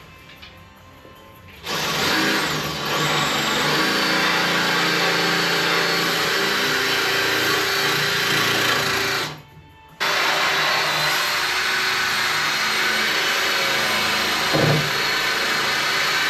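Power tool spinning a wire wheel against the rusty steel lip of a car's quarter panel, grinding the rust out. It starts sharply about two seconds in, stops for half a second a little past halfway, then runs again.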